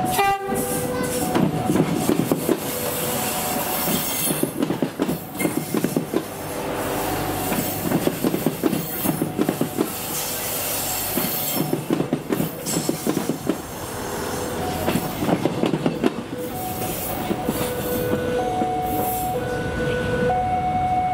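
A KAI diesel commuter railcar passing close by, its wheels clicking in rhythmic runs over the rail joints. A level-crossing alarm sounds two alternating tones briefly at the start and again in the last few seconds.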